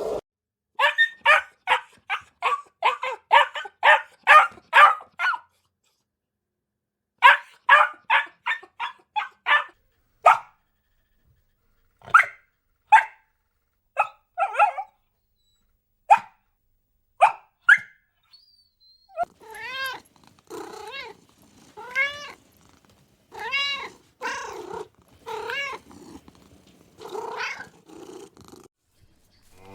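Cat meowing: quick runs of short, high mews for the first ten seconds, then scattered single mews, then longer meows that rise and fall in pitch from about twenty seconds in.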